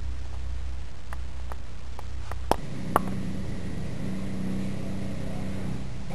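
Steady low hum with a few light clicks between about one and three seconds in; the hum changes to a slightly higher one about two and a half seconds in.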